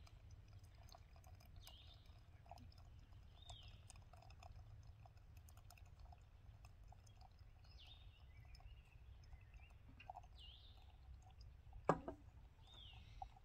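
A bird calling again and again, a short arched call every two to three seconds, over a faint low rumble. A single sharp knock comes about twelve seconds in.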